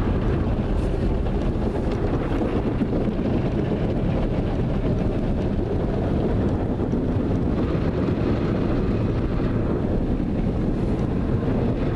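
Automatic car wash spraying water and coloured foam over the car, heard from inside the cabin as a steady rush.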